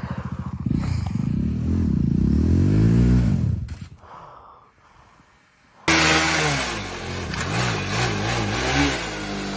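Single-cylinder sport motorcycle engine pulsing at idle, then revving up and back down over a couple of seconds before fading away. After a sudden cut, a motorcycle engine revs unevenly under a loud rushing noise.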